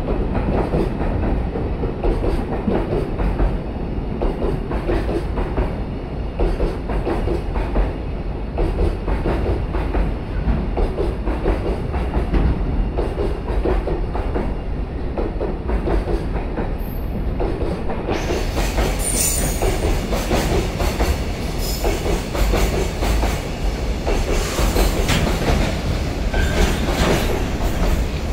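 A JR Freight container train pulling out, its container wagons rolling past with a steady clickety-clack of wheels over the rail joints. A brief high wheel squeal comes in about two-thirds of the way through.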